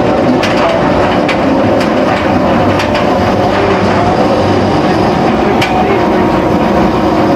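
Steel roller coaster train being hauled up its chain lift hill: the lift chain and train make a loud, steady clatter with a few sharp clicks.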